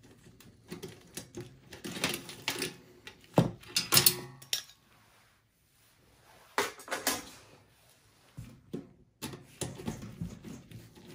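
Scattered sharp clicks and metallic clinks of a screwdriver working at the front USB and audio port bracket of a desktop PC's sheet-steel chassis, coming in short bunches with a brief quiet spell in the middle.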